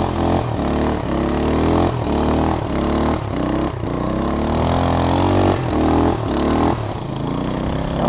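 ATV (four-wheeler) engine revving up and down over and over, its pitch climbing in short sweeps and dropping back as it pulls through the snow.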